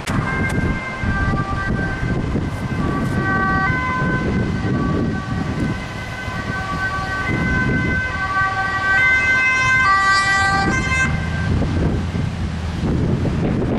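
Dutch police car's two-tone siren alternating between a high and a low note over a steady tone, growing louder and cutting off about eleven seconds in. Traffic and wind noise on the microphone run underneath throughout.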